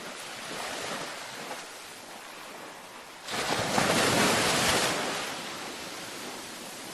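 Ocean waves breaking on a beach. A small wave washes in near the start. A little past the middle a louder wave crashes in suddenly, then washes back and fades.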